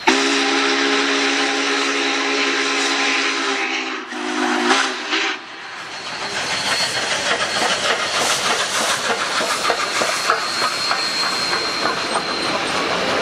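Union Pacific 844, a 4-8-4 steam locomotive, blowing its whistle: a long blast of several notes sounding together, with a short break and a second blast about four seconds in. Then the locomotive passes close by with loud steam hissing and the clatter of the train over the rails.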